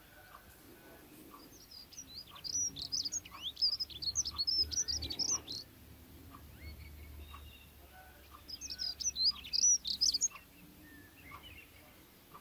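Small bird twittering: two spells of rapid high chirps, the first about two seconds in and lasting some four seconds, the second shorter, near the end.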